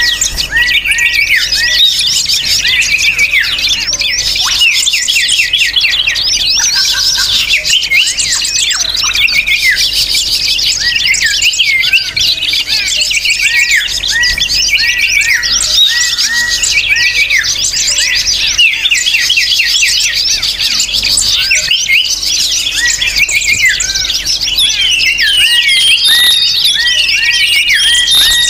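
A noisy chorus of many small birds chirping and chattering over one another without a break, the kind of recording played as a lure to draw wild birds in.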